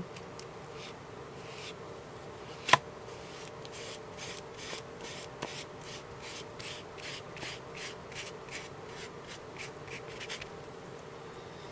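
Foam sponge dauber brushing wet Mod Podge across a paper napkin laid on paper: a run of soft rubbing strokes, about two a second, with one sharp tap a little before they start.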